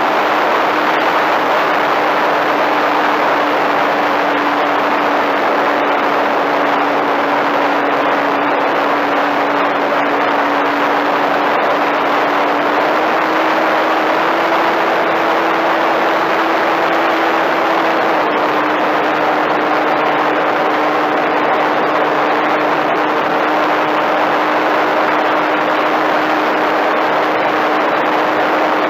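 The electric motor and propeller of a Flyzone Switch RC plane run steadily in flight, heard from an onboard camera under loud wind rush. The motor's hum rises a little for a few seconds about halfway through, then settles back.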